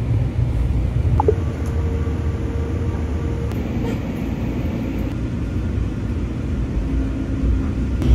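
Light rail train running, heard from inside the passenger car: a steady low rumble of wheels and motors, with a brief squeak about a second in and a faint steady whine for a couple of seconds after it.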